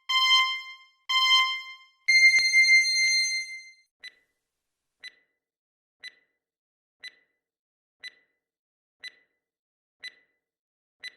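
Electronic countdown timer sound effect: two short beeps, then a longer beep about two seconds in, followed by faint ticks once a second, eight in all.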